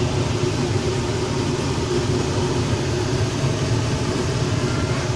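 A steady low mechanical hum that keeps an even level throughout.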